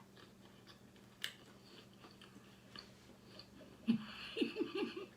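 Close-up chewing and biting of chicken, with small wet mouth clicks. About four seconds in comes a louder stretch of chewing with a short muffled voiced sound from the eater.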